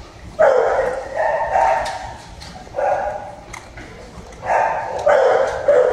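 Basset Hound howling in several drawn-out calls with short pauses between them.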